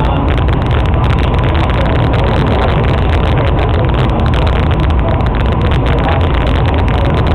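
Ferry boat under way: a steady, even rumble of engine and water noise, heaviest in the low end, with a faint steady tone above it.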